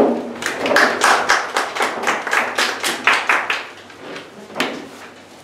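A small audience clapping: a quick run of claps at about four or five a second that dies away after three or four seconds, with one last clap near the end.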